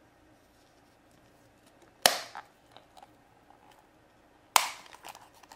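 Plastic surprise egg being pried open: two sharp plastic snaps about two and a half seconds apart, with faint crackles of its shrink-wrap label between them.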